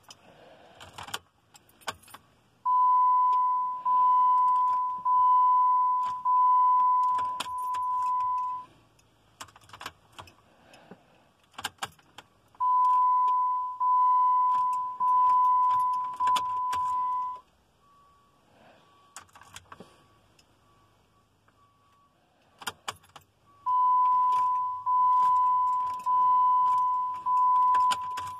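2010 Jeep Compass dashboard warning chime sounding in three runs of four or five steady tones, about one a second, with keys jangling and clicking in the ignition between runs. The engine does not crank: a no-crank, no-start fault.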